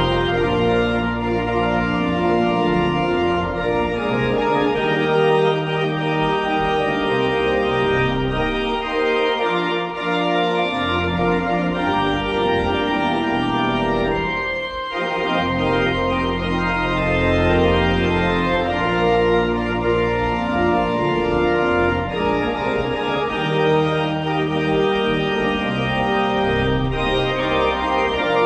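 Church pipe organ playing a postlude in full, sustained chords, with a brief break in the sound about halfway through.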